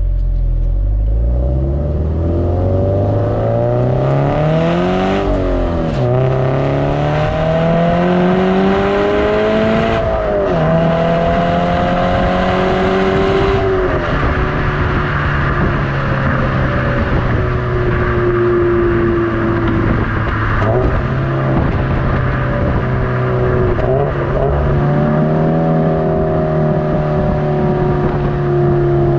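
Subaru BRZ's flat-four engine through an HKS Legamax Premier cat-back exhaust, accelerating hard: the pitch climbs and drops sharply with three upshifts in the first fourteen seconds, then the car holds a steady pace with a deep, rumbly exhaust tone.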